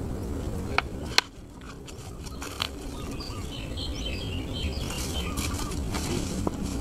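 Outdoor ambience: a steady low wind rumble on the microphone, with faint bird chirps in the middle. A couple of sharp clicks sound about a second in.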